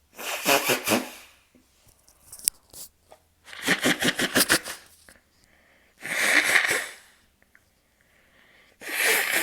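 A person blowing their nose hard into a tissue four times, each blow about a second long with a fluttering rattle through it. Faint tissue rustles come between the blows.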